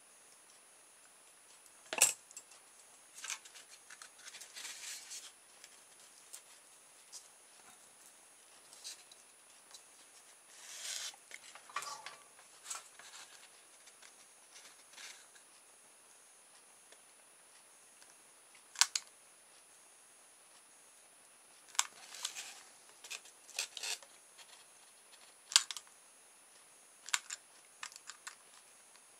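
Intermittent sharp clicks and light rustling from small hand tools: pliers working a piece of paper-clip wire, then a hot glue gun being handled. The loudest click comes about two seconds in, and several more come in the second half.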